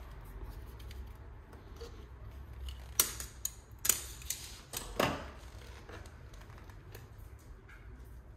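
Battery charger clamps being unclipped from a lead-acid battery's terminals: a handful of sharp clicks and clacks in the middle, over a low steady hum.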